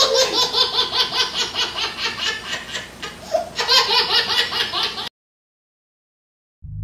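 Hearty laughter in a fast run of repeated ha-ha bursts, cutting off abruptly about five seconds in.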